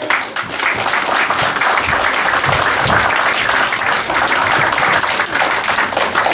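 Audience applauding, breaking out at the end of a song and holding at a steady, full level.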